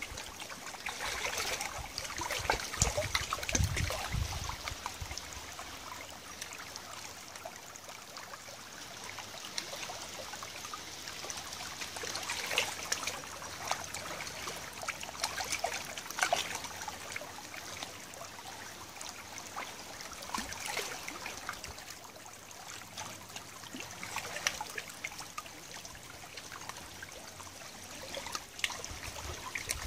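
Shallow tidal river water trickling and lapping at the edge of a pebbly bank: a steady wash with scattered small splashy clicks. A brief low rumble comes about three seconds in.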